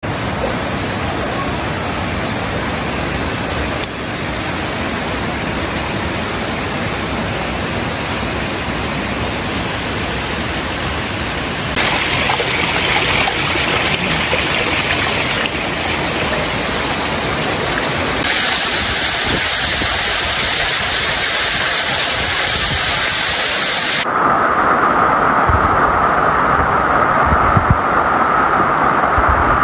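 Steady rush of water running over rocks in a jungle stream and waterfall. It changes abruptly in loudness and tone several times.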